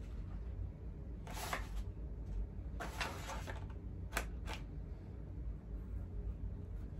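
Hands handling a stiff face mask shell: two short bursts of rustling, then two sharp clicks about four seconds in, over a steady low hum.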